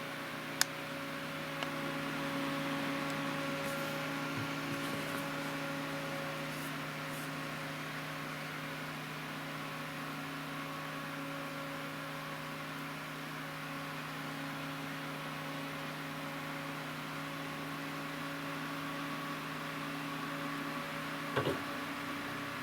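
G.Skill Royal Wind fan running steadily: a hum with several steady tones over an airy hiss. A few sharp clicks come about half a second in, about a second later, and near the end.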